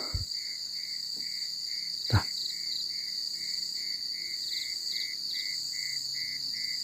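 Night insects, crickets among them, chirring steadily in high trills, with another call pulsing about three times a second. About two seconds in there is a single sharp knock.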